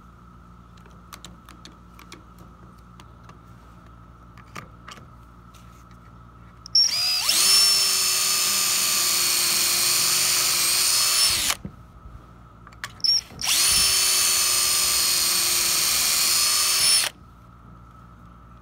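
DeWalt drill boring pocket holes through a pocket-hole jig into a 2x4, in two runs of about four seconds each: the motor spins up quickly, runs at a steady whine while cutting, then stops. Before the first run there are only a few faint clicks from handling the jig and clamp.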